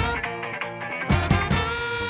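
Upbeat music with a steady beat over the opening titles.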